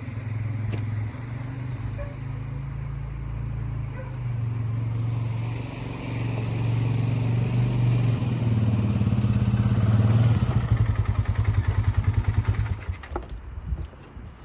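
A motor running steadily with a low hum. About ten seconds in it turns to rapid, even pulsing, about six beats a second, and then stops near the end.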